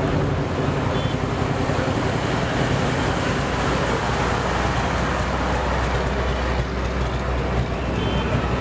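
Engine of a vintage flatbed lorry running as it drives slowly past. Its low engine note is strongest about halfway through as it goes by close, then a following truck's engine takes over.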